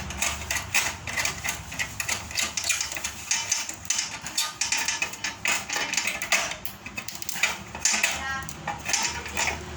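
Metal machine parts clinking and knocking as they are handled, a quick irregular run of small impacts.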